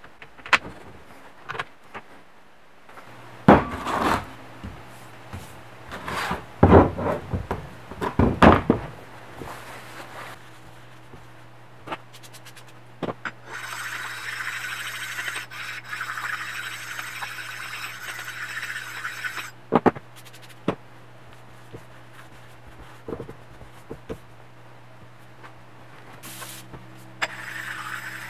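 Workshop handling noise at a CNC mill: loud knocks, clatter and scrapes of metal parts and fixtures being handled and set down, mostly in the first nine seconds. Under it runs a steady low machine hum that starts a few seconds in, with a stretch of steady hiss in the middle and again near the end.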